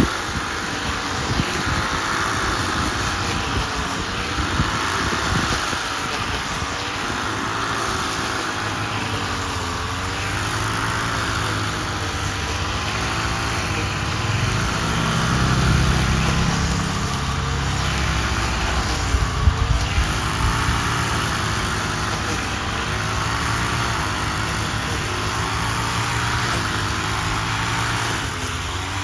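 An engine running throughout, its pitch rising and falling every few seconds as the load changes, typical of harvesting machinery working a rice field.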